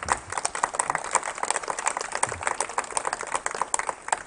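A small audience clapping: many quick, irregular hand claps that thicken after the first moment and thin out near the end.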